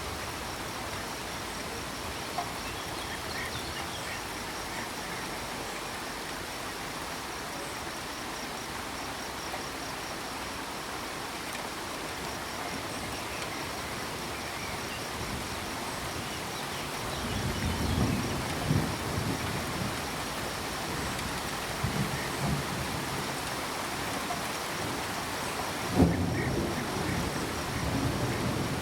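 Steady rainfall, with low thunder rumbling in several swells during the second half.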